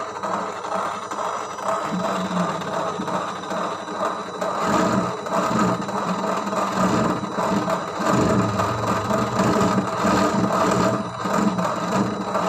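An RC model boat's gearbox being test-run by a small motor: a steady whirring with a gear rattle. It becomes fuller and louder about four and a half seconds in.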